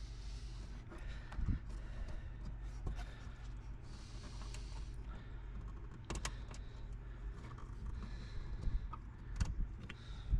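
Scattered clicks, taps and knocks of hands handling small hardware, over a steady low hum.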